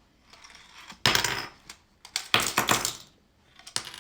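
Tiny Micro Machines toy cars clattering and rattling on a plastic playset: a sudden clatter about a second in, a longer burst of rattling a second later, and a few light clicks near the end.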